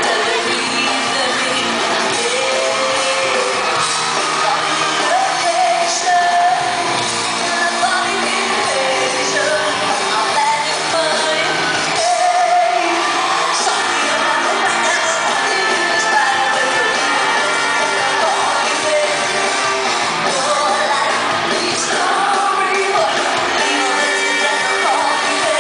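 Live band music heard from the audience in a large hall: a woman sings lead into a microphone over drums and a trumpet, with fans shouting along.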